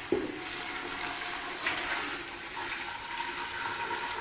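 Hot water poured in a steady stream from a saucepan into a stainless steel stockpot of browned meat and onions, adding the water for the couscous broth.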